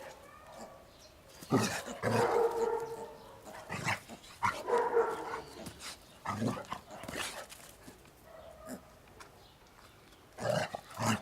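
A dog giving several short outbursts of barks and yips, some drawn out into a whine, with quiet gaps between.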